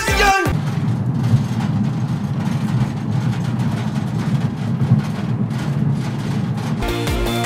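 A van's steady low road and engine rumble while driving. Loud music and singing cut off about half a second in and start again near the end.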